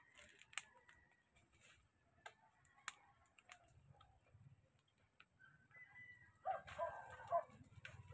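A burning pile of cut weeds and grass, crackling faintly, with a few sharp pops spread through the quiet. Near the end come a few short animal calls.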